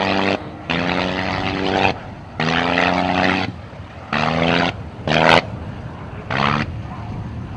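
Sopwith Camel's 160 hp Gnome rotary engine in flight, cutting in and out: about five bursts of engine note separated by quieter gaps, each burst shorter than the last. This on-off pattern is typical of a rotary engine being blipped to control its power.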